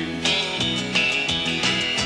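Country band playing between sung lines, guitar to the fore over a steady beat.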